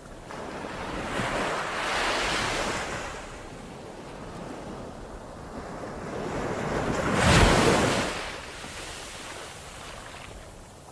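Ocean waves surging and breaking, twice: one wave rises and washes in about two seconds in, and a louder one crashes about seven seconds in, with a softer wash of water between them.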